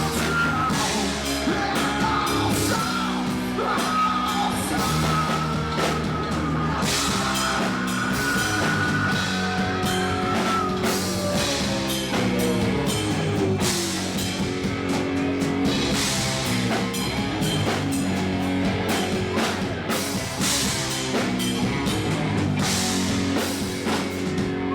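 Rock band playing live: drum kit, guitar and singing. A long, high melodic line wavers over the first half, and a falling glide comes near the middle.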